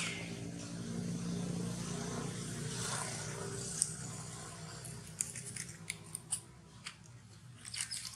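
Sharp little clicks and snaps in quick clusters through the last three seconds, over a low steady hum.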